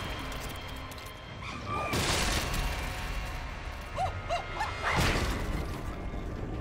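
Sound effects of a brutal fight between a caveman and ape-creatures. There are heavy crunching hits about two seconds in and again about five seconds in. Between them an ape gives several short screeching cries that rise and fall, about four seconds in.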